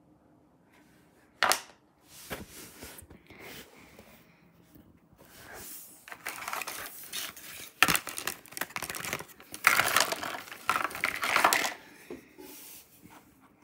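Clear plastic blister packaging crackling and clattering as it is handled and stacked on a wooden table, loudest in the second half. A sharp click comes about a second and a half in.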